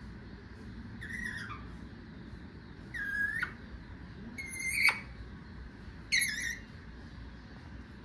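Indian ringneck parakeet giving four short, high-pitched calls, spaced a second or two apart, the third the loudest.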